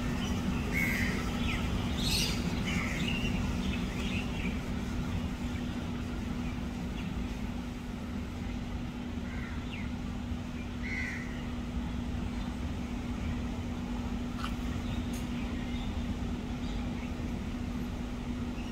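Steady low rumble of background traffic with a constant hum, and a few short bird chirps: about a second in, around two seconds, and again near eleven seconds.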